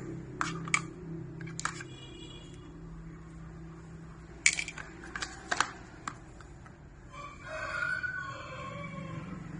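A few sharp clicks over a low steady hum, then a rooster crowing once near the end, a pitched call of about a second and a half.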